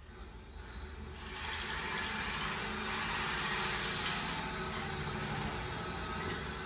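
Motorised curtain track's electric motor running with a steady whirr and low hum as the Sierra blind draws open, starting about a second in.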